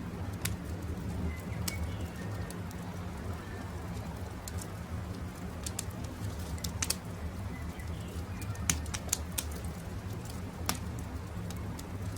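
Campfire crackling, with scattered sharp pops and snaps over a steady low background, a few louder ones late on. Faint short bird calls sound now and then.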